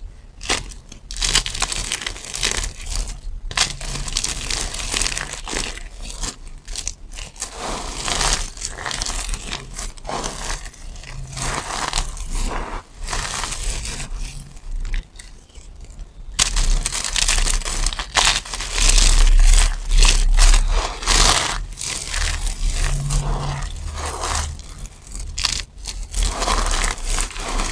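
Dry soap chips and flakes crunching and crumbling as hands squeeze, rub and crush them in a pile, a dense crackle of many small crunches. It grows louder and fuller about two-thirds of the way through.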